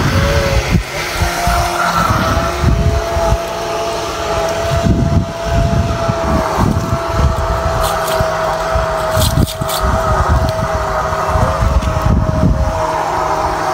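Small remote-control boat's motor running with a steady high whine as it tows a fishing net out across the water, over gusts of wind buffeting the microphone.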